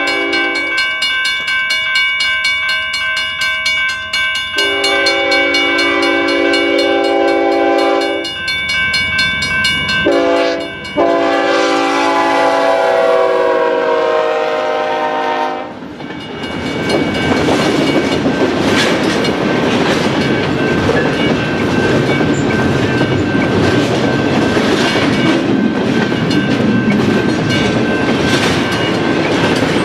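Union Pacific GE ES44AC (C45ACCTE) lead locomotive's air horn sounding several blasts for a grade crossing, the last long blast dropping in pitch as it passes. Then the locomotives and double-stack container cars rumble by with a rhythmic clatter of wheels over the rail.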